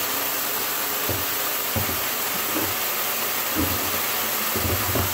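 Water hissing steadily from a handheld shower sprayer set to a high-pressure spray, rinsing dry coral rock in a bathtub, with a few soft low knocks as the rock is turned against the tub.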